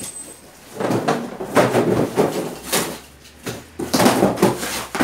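Cardboard shipping boxes scraping and sliding as they are shifted, and cardboard and plastic wrapping rustling as hands dig into an opened box. It comes as a string of irregular scrapes and rustles.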